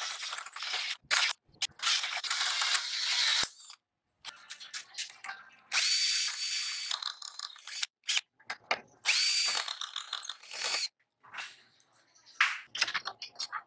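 Cordless drill running a hole saw into a square steel tube in short on-off bursts, then driving a drill-mounted nibbler that chops a slot through the steel in two bursts of about a second and a half each, with a steady high whine. Faint small knocks and scrapes near the end.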